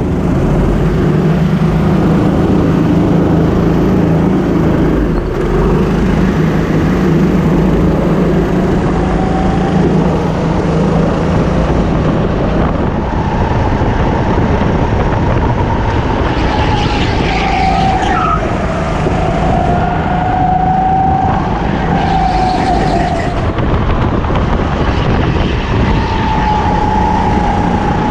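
Rental racing kart's engine running under throttle at speed, heard from the driver's seat, its note shifting up and down through the lap. Other karts run close by.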